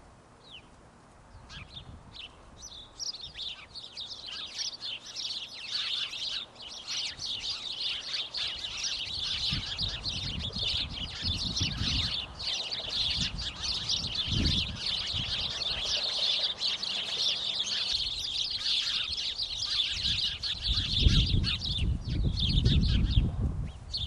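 A flock of swallows chattering together in a bush: many overlapping short, high chirps, sparse at first, then a dense continuous chatter that thins out near the end. Low rumbles on the microphone come and go in the middle and near the end.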